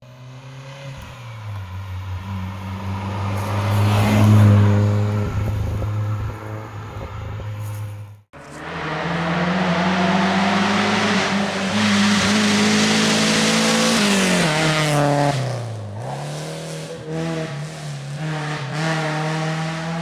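Fiat Panda 100HP's 1.4-litre four-cylinder petrol engine running through a Ragazzon aftermarket exhaust under load. Its revs climb and hold, it cuts out sharply about eight seconds in, then comes back to hold, dips and rises again near the end.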